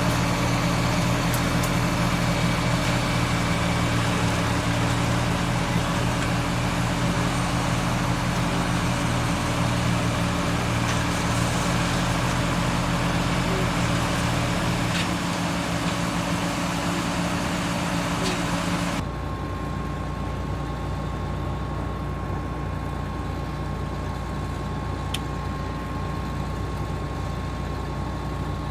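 Engine of harvest machinery running steadily at a constant speed. Two-thirds of the way through, the sound changes abruptly to a quieter, different steady drone with a thin whine.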